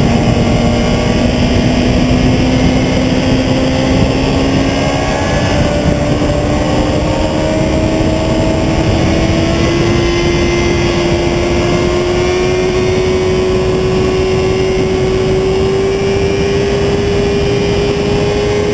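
Sport motorcycle's engine pulling at speed, its note climbing slowly and steadily the whole time as the bike accelerates in one gear through a long corner. Heavy wind rush over the microphone runs under it.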